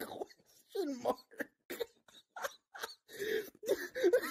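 A person's voice making short, broken, wordless bursts, a few a second. Near the end it becomes a longer drawn-out vocal sound.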